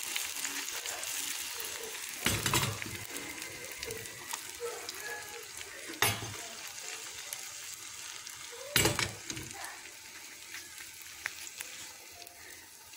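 Egg omelette sizzling in a nonstick frying pan, a steady hiss, with three short louder knocks about two, six and nine seconds in.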